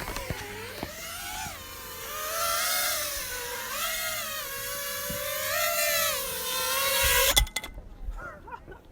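FPV quadcopter's motors and propellers whining overhead, the pitch wavering up and down with throttle changes; it cuts off suddenly about seven and a half seconds in.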